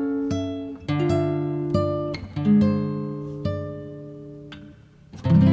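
Background music of plucked guitar notes, each note ringing and dying away before the next, with a louder chord struck near the end.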